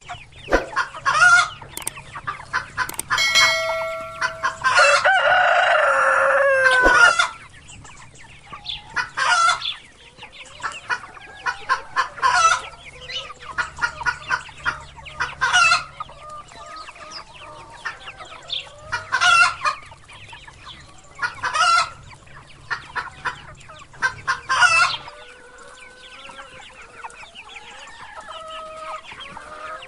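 Chickens clucking and a rooster crowing, with loud short calls every two to three seconds. A long, loud call comes a few seconds in.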